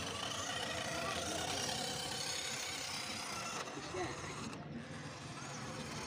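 Toy remote-control monster trucks driving over rough concrete, their small electric motors and gears running steadily. The sound thins briefly about four and a half seconds in.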